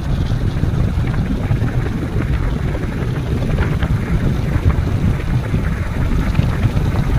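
Wind buffeting the phone's microphone on a moving motorcycle, a steady low rumble with the bike's engine and tyre noise underneath.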